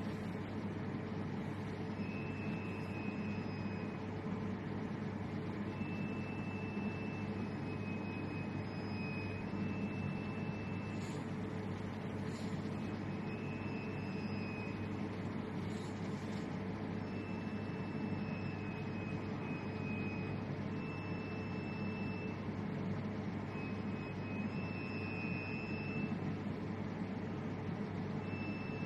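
Steady machine hum with a high, thin tone that switches on and off every second or two.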